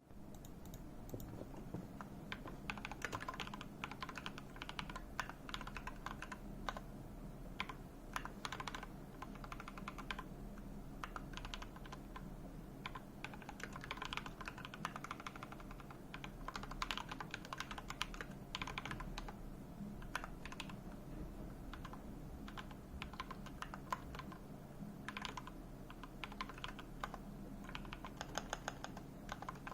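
Typing on a computer keyboard: quick runs of key clicks with short pauses between bursts, over a faint steady low hum.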